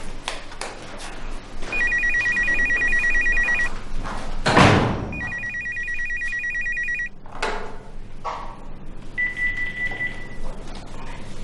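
Telephone ringing with a trilling electronic ring, two bursts of about two seconds each, then a brief third tone near the end. Between the first two rings there is a loud thump.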